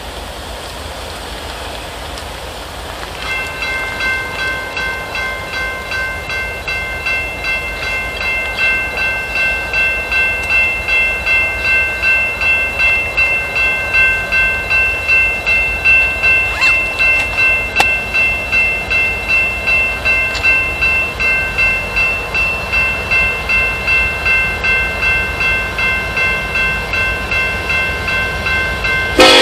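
Railroad grade-crossing warning bell starts about three seconds in and dings steadily about twice a second as the crossing activates for an approaching train. A train horn cuts in loudly at the very end.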